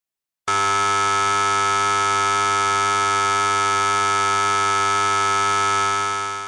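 Theatre performance-start buzzer: one long, steady buzz that starts about half a second in and fades out near the end.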